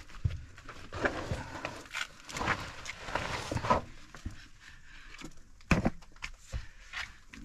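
Footsteps and scuffing of a person moving over a cave's dirt and rock floor, with irregular scrapes and a few sharp knocks, the loudest a little under six seconds in.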